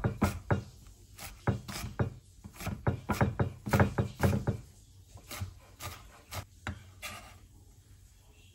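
Chef's knife mincing dallae (wild chive) and garlic on a wooden cutting board, the blade knocking on the wood in quick, irregular strokes. The chopping thins out and stops about seven seconds in.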